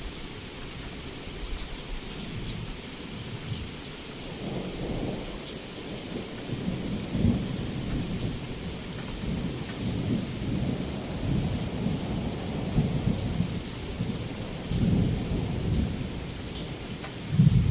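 Heavy rain falling steadily, with thunder rolling in about four seconds in and rumbling on in several swells, the loudest near the end.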